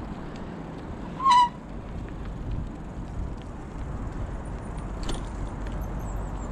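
Steady wind and tyre rumble from a bicycle rolling along at riding speed. One short, sharp pitched call cuts through about a second in.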